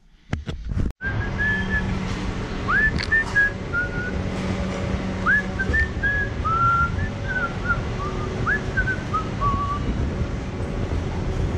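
A person whistling a tune of short notes, several swooping upward, over steady street background noise with a low hum; the whistling stops about nine seconds in.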